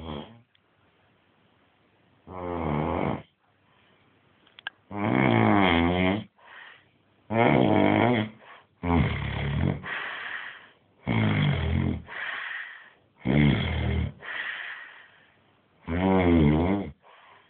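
Heavy snoring: about seven long, loud snores, roughly one every two seconds, some trailing off into a softer breath.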